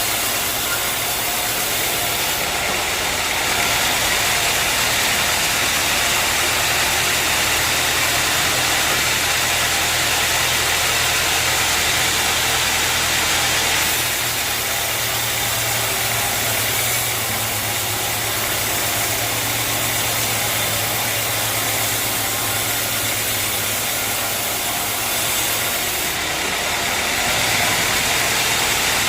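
Sawmill machinery running steadily: a continuous hiss over a low hum, with small shifts in level every few seconds.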